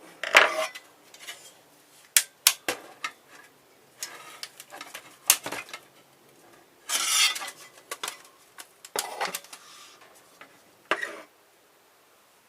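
Metal and plastic clicking, clattering and scraping as a car stereo's case is pried apart at its tabs, with a longer scrape about seven seconds in.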